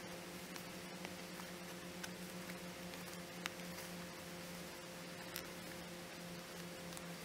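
A faint steady hum runs throughout. Over it come soft, scattered ticks and rustles of a needle and thread being worked through cotton fabric in hand sewing, with one sharper tick about three and a half seconds in.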